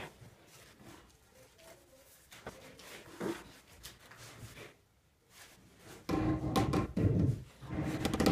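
Quiet scraping and light taps as aerated concrete blocks are set on mortar. About six seconds in, a run of dull knocks starts, about two a second: a rubber mallet tapping a block down into its mortar bed.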